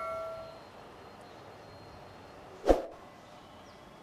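A bell-chime sound effect rings out and fades away in the first half second. About two and a half seconds later comes a single short click, the kind of click and notification-bell sounds used in a subscribe-button animation.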